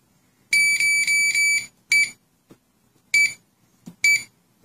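The touch keypad of a wireless GSM burglar alarm panel beeping at key presses: a quick run of about four high beeps, then three single short beeps about a second apart.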